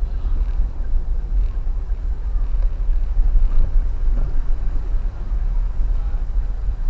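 Steady low rumble of a 1.3-litre Toyota Avanza driving through floodwater, with no distinct pitched engine note.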